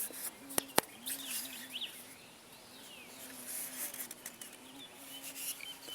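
Birds chirping, with a low hum that wavers slightly in pitch, the buzz of a bumblebee in flight. A few sharp clicks come in the first second.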